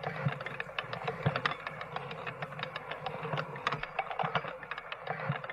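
Cartoon sound effect of rapid, irregular soft clicking, a rattle running on for several seconds over a faint low hum.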